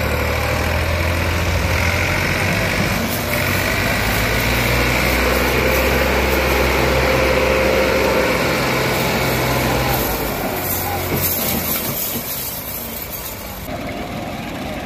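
Tractor diesel engine running hard under load as it pulls a loaded trolley through deep sand, steady and heavy for about ten seconds, then easing off.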